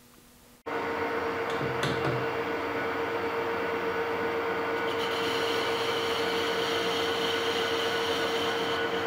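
Metal lathe running steadily with a constant mid-pitched hum, turning a pulley part in the four-jaw chuck while a light cut is taken on it; the sound starts abruptly under a second in, and a higher steady whine joins about five seconds in.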